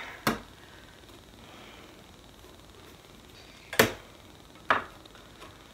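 Three short, sharp taps as a ruler, vinyl sheet and wooden sign board are handled on a craft table: one just after the start, then two about a second apart near the end, the first of these the loudest.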